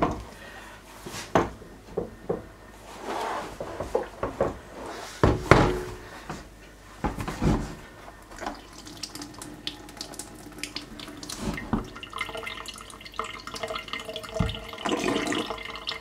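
Hot water running out of the tap of a plastic homebrew pressure barrel into a stainless steel sink, with knocks and clunks in the first half as the barrel is handled. The flow settles into a steady stream in the last few seconds.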